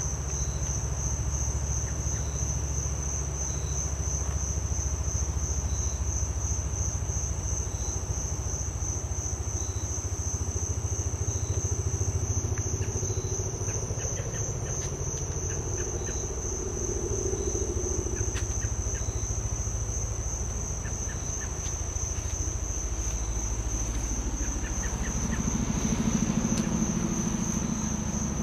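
A USAF CH-47 Chinook's tandem rotors beating in a low, rapid thudding rhythm, with insects chirring in a steady, high-pitched pulsing trill over it.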